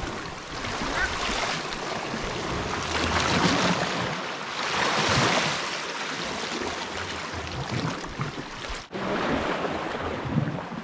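Sea surf washing against a rocky shore, swelling and easing in surges, with wind buffeting the microphone. The sound drops out briefly about nine seconds in.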